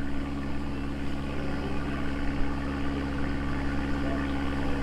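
Steady engine hum from a passing tall ship on the river. The pitch holds several even, low tones that do not change.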